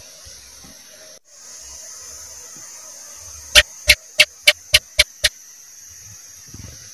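House gecko (cicak) calling: a run of seven sharp chirps, a little over three a second, the chik-chak call, over a steady high hiss.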